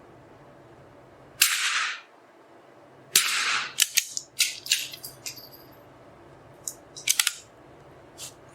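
Anschutz 1903 .22 LR target rifle on an indoor range: two loud sharp cracks with a brief tail about a second and a half apart, followed by strings of quick metallic clicks from the rifle's action being worked between shots.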